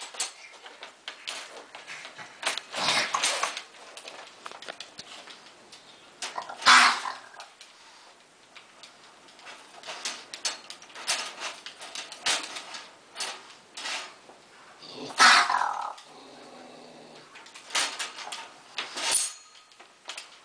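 A trapped mother raccoon growling and snarling in repeated loud bursts, two of them falling in pitch, while the metal wire cage trap rattles and clicks.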